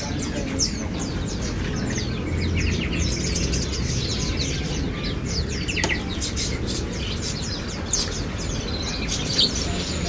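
Many small caged songbirds chirping over one another, a dense chorus of short, high, falling chirps, over a steady low background hum.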